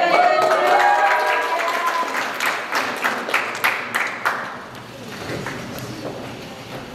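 Audience applauding in a hall, with voices calling out over it in the first couple of seconds; the clapping thins out after about five seconds.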